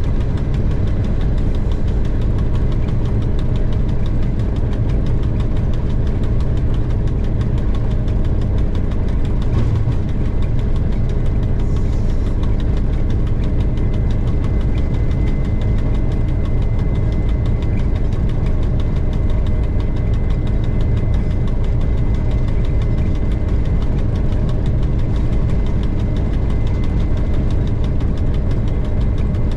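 TEM2 diesel locomotive's six-cylinder diesel engine running steadily, a deep even rumble heard from inside the cab. A faint steady high whine joins about halfway through.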